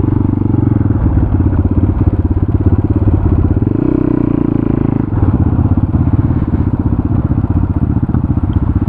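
Motorcycle engine running as the bike is ridden, a fast, even stream of firing pulses at a steady loud level; the sound shifts briefly about four seconds in, then settles back.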